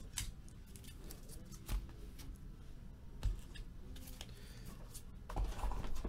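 Scattered light clicks and small handling noises at a desk, with a short rustle of handling about five seconds in.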